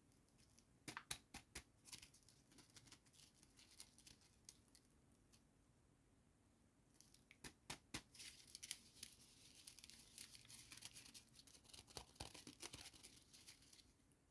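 Packaging of a doll set being handled and opened: sharp clicks and crinkles, then a dense stretch of tearing and crinkling from about eight seconds in that stops just before the end.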